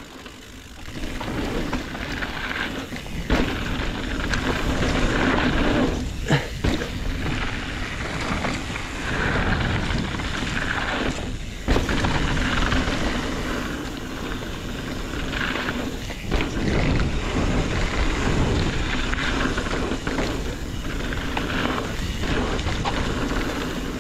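Mountain bike riding down a dirt and rock trail: continuous tyre noise on the ground with rattling from the bike, and a few sharp knocks. The noise drops out briefly a few times.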